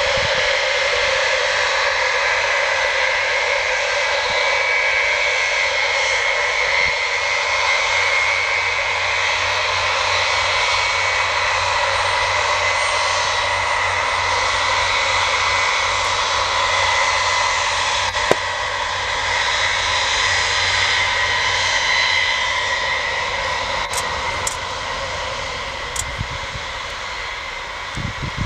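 Boeing 707's four Pratt & Whitney JT3D turbofan engines running at taxi power: a steady jet whine with a high tone. It grows a little quieter in the last few seconds as the aircraft turns away onto the runway.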